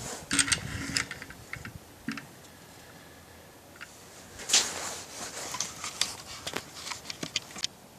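Handling noise of two pistols: small clicks and taps, with a louder rustle about four and a half seconds in.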